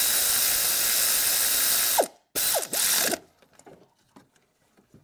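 A power ratchet runs with a steady hiss as it drives down a bolt beside an engine's water pump: one spell of about two and a half seconds, a short break, then two brief bursts. After that come only a few faint clicks.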